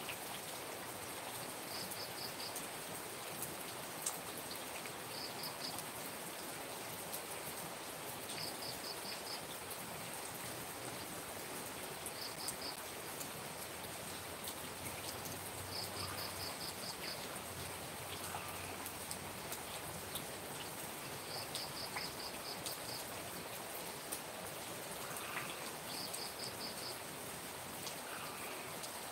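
Steady rain falling and dripping. A high chirp in quick groups of three to six pulses repeats every few seconds over it.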